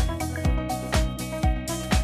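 Background music with a steady beat, about two beats a second, under sustained notes.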